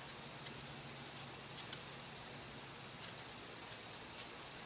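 Thread being wound and pulled tight around a model airplane's wooden motor stick to bind on the thrust bearing: faint, irregular small ticks and rasps, a dozen or so, the sharpest a little after three seconds and again about four seconds in.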